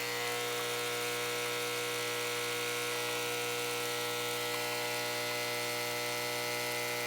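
Breville espresso machine's pump running with a steady buzz, pushing descaling solution through the machine during a descale cycle.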